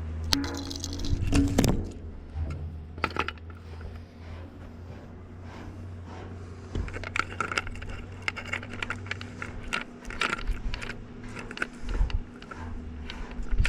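Small metal objects clinking and rattling as they are handled, with scattered sharp clicks, over a steady low hum.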